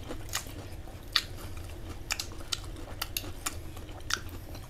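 Scattered small clicks and taps at an uneven pace, one louder about a second in, over a low steady hum.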